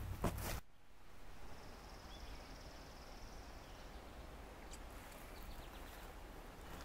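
A brief rustle with a sharp click in tall grass cuts off abruptly. Then comes quiet woodland ambience with a faint, high insect trill for about a second and a half, and a few faint ticks near the end.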